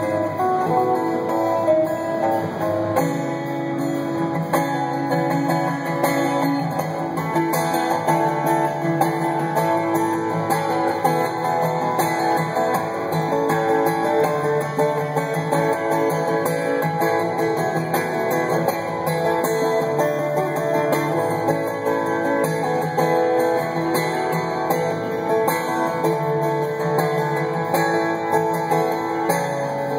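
Steel-string acoustic guitar played solo in fingerstyle, with many notes left ringing over a recurring low bass line.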